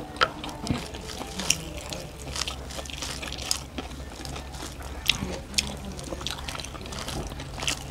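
Close-up mouth sounds of people eating rice and curry by hand: wet smacking and chewing, with many quick sharp clicks scattered throughout. A low steady hum runs underneath.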